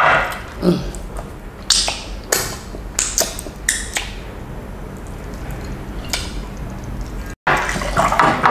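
Wet mouth smacks and sucking as fingers are licked clean, a string of short sharp smacks over the first few seconds. Near the end, water is poured from a plastic bottle into a glass, a steady rushing pour.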